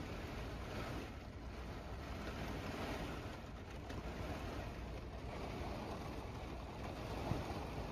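Rain and strong wind lashing a camper van, water spraying against the body as if in a car wash, with a steady low wind rumble.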